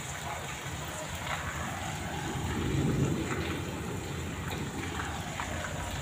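Heavy rain pouring steadily onto a flooded courtyard, with scattered sharper drop hits. A low rumble swells and fades in the middle.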